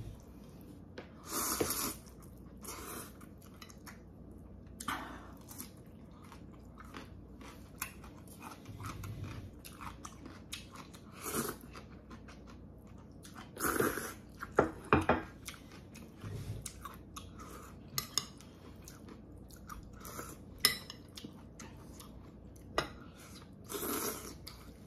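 Someone eating Korean thin wheat noodles (janchi guksu): noodle slurps and chewing, with now and then a sharp clink of chopsticks and spoon against the bowl.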